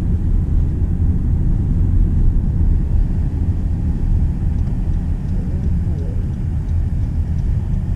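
Steady low rumble of a car on the road, heard from inside the cabin, with faint voices under it.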